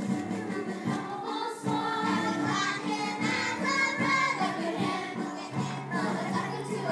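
Voices singing a stage-musical song with instrumental accompaniment, over steady sustained bass notes.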